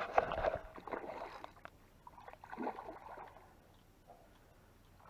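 Water splashing and sloshing in irregular bursts, strongest in the first second and a half, again briefly about two and a half seconds in, then dying down: a hooked tench thrashing at the surface as it is played in, fighting hard.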